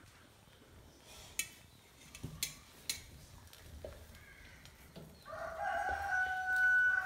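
A drawn-out animal call, about two seconds long, starting a little over five seconds in, with a few faint clicks before it.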